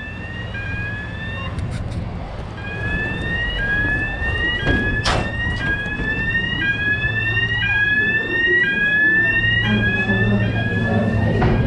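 Repeating electronic warning beep, about one a second, each beep gliding slightly upward, over the steady low hum of the ferry's engine, which grows stronger near the end. A brief knock about five seconds in.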